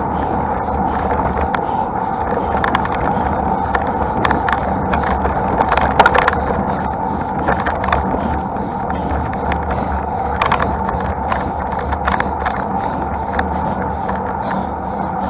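Road-bike riding noise: a steady rush of tyres on the road and wind rumble on the microphone, with scattered rattling clicks. The loudest rattle comes about six seconds in.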